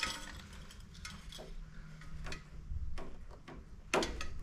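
Scattered light clicks and taps as multimeter probes are pressed against the terminals of an electric water heater's thermostat; the sharpest click comes about four seconds in. A low steady hum runs underneath.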